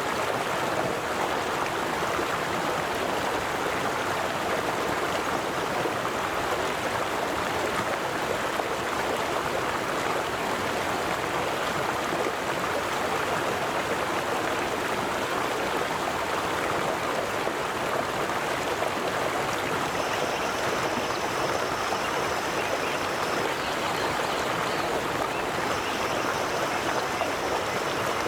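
River water flowing steadily, a constant rushing wash of running water. In the second half a faint, thin high tone comes in twice, a few seconds each time.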